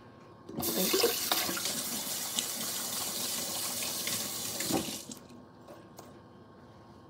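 Kitchen tap running into a sink for about four seconds, then shut off.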